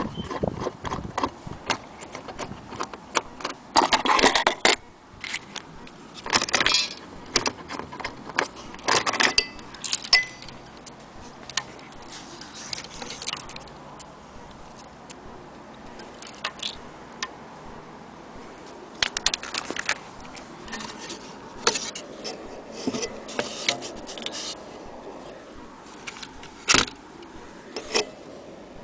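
Irregular metallic clinks and rattles from an old Junghans wall clock being handled, coming in bunches with short pauses between, not a steady tick.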